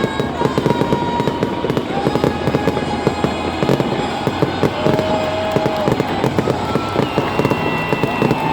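Fireworks going off in a dense, continuous barrage, many bangs and crackles a second without a break.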